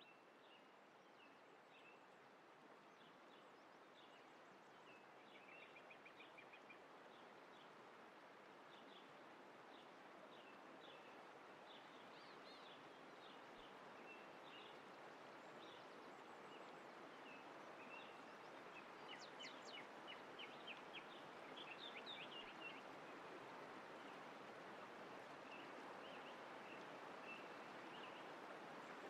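Faint nature ambience: small birds chirping and twittering in short high calls over a steady soft rushing background, growing slightly louder, with a busier flurry of chirps past the middle.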